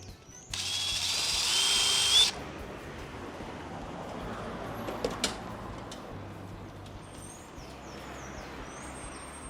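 Electric drill running for just under two seconds, starting about half a second in, then stopping abruptly. It is widening a hole so that a camera cable's balun connector can pass through. A few light clicks follow.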